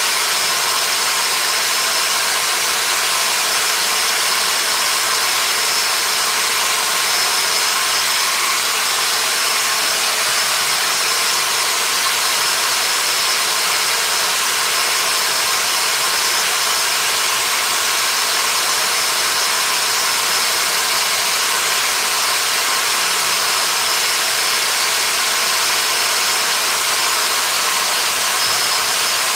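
A workshop power tool running steadily without a break: an even, hissing machine noise with a faint high whine over it.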